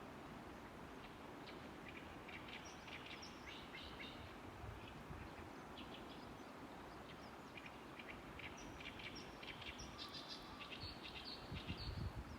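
Small birds chirping: many short, high chirps in scattered clusters over a steady background hiss, with a low rumble coming in near the end.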